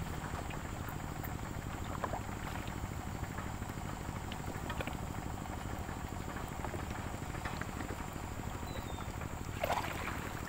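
Water sloshing around a bamboo raft as it is poled upstream on a river, with scattered small splashes and one louder splash near the end.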